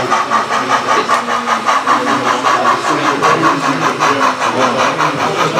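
Model steam locomotive running along a layout, its sound system giving a fast, even chuffing of about five or six beats a second.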